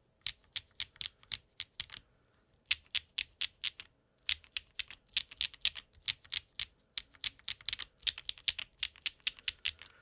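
Typing on a Qwertykeys Neo80 mechanical keyboard fitted with HMX Cloud linear switches and GMK keycaps: quick runs of keystroke clacks, with short pauses about two and four seconds in.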